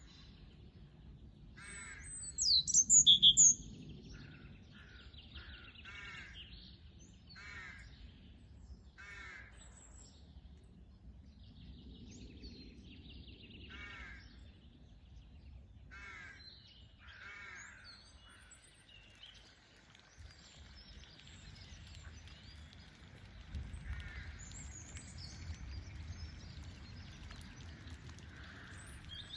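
Wild birds calling: a short, loud burst of high chirps about two to three seconds in, then a bird call repeating about every second and a half. After about twenty seconds the calls thin out into a steady outdoor hiss with a low rumble and occasional faint chirps.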